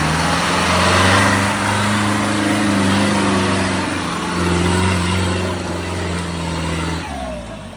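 Off-road 4x4's engine running hard under load, its note swelling and easing with the throttle, then dropping away about seven seconds in.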